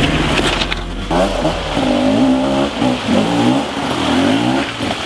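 2013 Beta 250RR two-stroke dirt bike engine revving up and down again and again as it is ridden, the revving starting about a second in.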